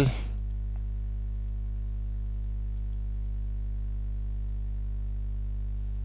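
Steady low electrical hum from the recording setup, with a few faint mouse clicks.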